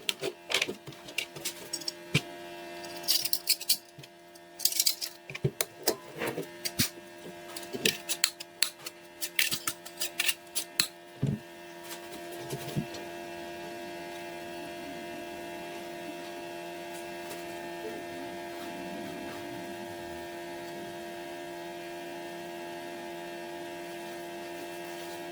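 A run of sharp clicks and knocks, some with short scraping sounds, over a steady electrical hum. The clicks stop about halfway through, and the hum goes on alone, a little louder.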